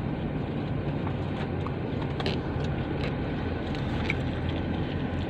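Steady low hum of a car idling, heard from inside the cabin, with a few small clicks and taps.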